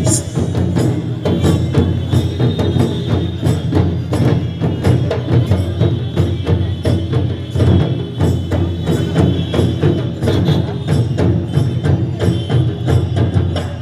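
Live Jharkhandi tribal folk music: fast, steady drumming on large drums, with a high held tone running over it through most of the passage.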